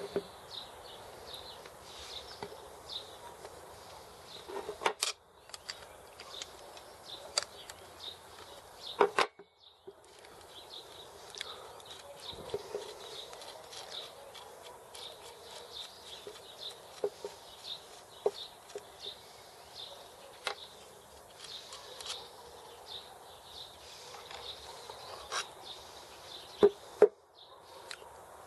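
Scattered clicks and sharp metallic knocks as the parts of a bicycle drum-brake hub are handled and taken apart by hand. Birds chirp throughout in the background.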